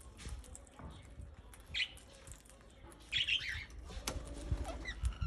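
Ring-necked parakeets calling: one short call about two seconds in, then a quick burst of several chirping calls about a second later.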